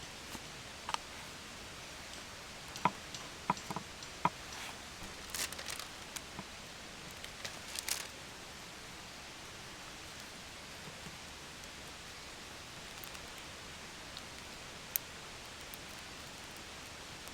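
Steady outdoor background hiss with a few light clicks, taps and rustles in the first half, and one more click near the end.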